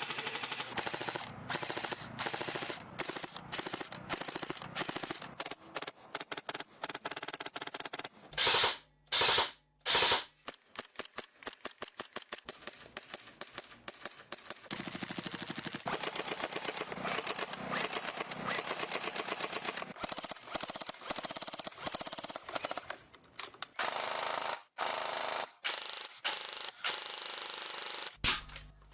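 Gas-powered airsoft guns firing rapid strings of shots, with three louder blasts between about eight and ten seconds in.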